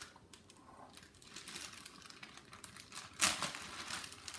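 Sticky slime being handled and pulled, giving a run of small clicks and crackles, loudest a little after three seconds in.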